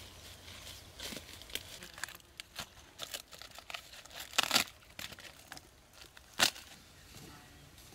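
Dry bark crackling and tearing as it is broken off a fallen tree trunk by hand, in irregular small cracks with two sharp snaps, the louder about four and a half seconds in and another just over six seconds in.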